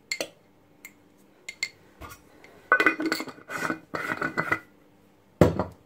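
Metal kitchenware clinking and clattering against a stainless steel cooking pot while spice is added: a few light clicks, then about two seconds of ringing clatter, and one heavier knock near the end.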